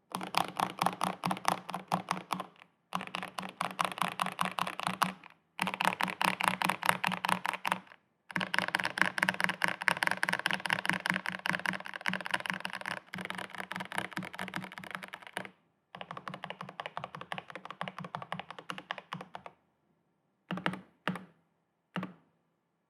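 Typing on a mechanical keyboard with lubed linear Gateron Yellow switches under soft silicone keycaps: fast runs of muted key clacks in several bursts with short pauses, ending in a few single keystrokes.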